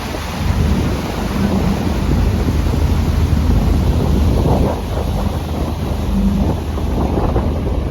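Wind buffeting the microphone aboard a moving boat, over a steady low rumble and the rush of water.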